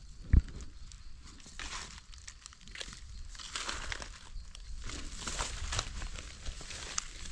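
Dry leaf litter and grass crackling and rustling as they are disturbed, with a single thump about half a second in.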